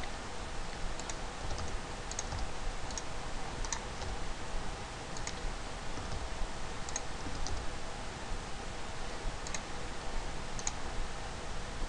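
Scattered clicks of a computer mouse and keyboard keys, about a dozen, some in quick pairs, over steady hiss and a faint steady hum.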